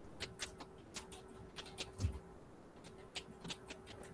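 Faint, irregular light clicks, a dozen or so, with one dull thump about two seconds in, over a faint steady hum.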